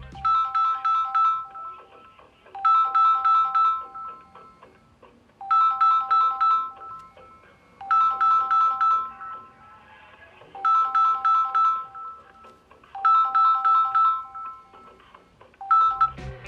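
Samsung Galaxy A14 ringing for an incoming call: a short, bright, bell-like melody of a few notes, repeated about every two and a half seconds.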